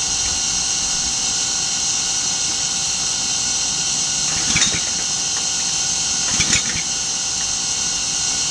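Gas-engine pressure washer running steadily: the small engine and pump hum under a high hiss, with two brief louder bursts about four and a half and six and a half seconds in.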